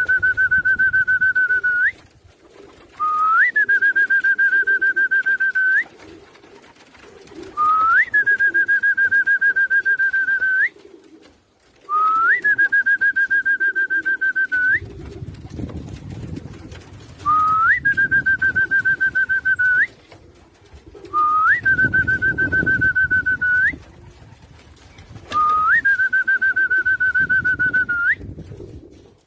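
A long whistled note repeated about every four seconds. Each one slides up at the start, holds steady with a slight waver for about three seconds, and ends with a quick upward flick. Pigeons coo faintly underneath.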